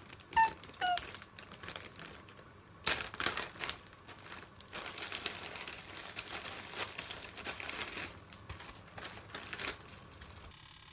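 Plastic zip-top bag and plastic-wrapped bread slices crinkling as they are handled, the slices taken out of the bag. Two short squeaky chirps about half a second apart come right at the start.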